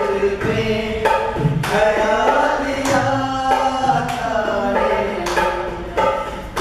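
Music with a singing voice over a steady drum beat, about one stroke every half second or so.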